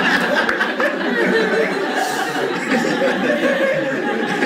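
Audience laughing: steady crowd laughter in a comedy club after a punchline.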